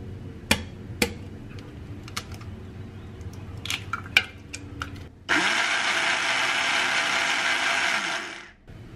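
A few sharp kitchen clicks and knocks, then an electric blender runs loudly for about three seconds and spins down.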